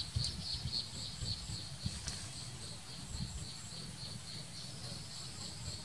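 Insects chirping in a steady train of evenly spaced, high-pitched pulses, about three to four a second, over a low rumble.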